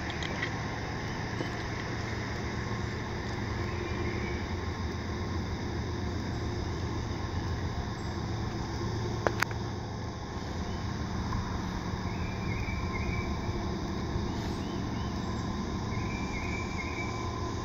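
Diesel freight locomotives working at full throttle (notch 8) out of sight down the line: a steady low drone. A sharp click about nine seconds in.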